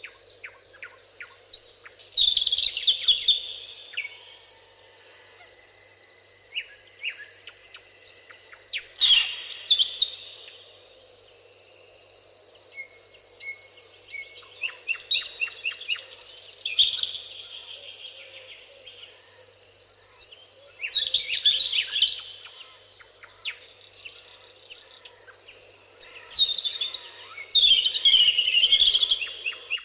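Songbirds singing: loud, quick song phrases about every five or six seconds, with softer chirps from other birds in between and a steady high-pitched tone underneath.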